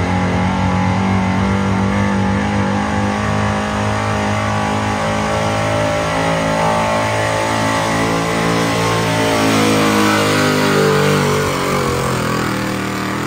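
Loud engine of a pulling vehicle running hard under load down the track, steady in pitch and a little louder about ten seconds in.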